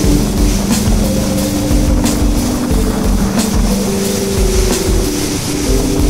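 Background music with held low notes that change pitch every second or two over a light, steady beat.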